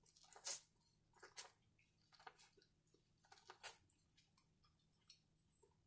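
Faint chewing and biting on corn on the cob, a few short mouth sounds about once a second.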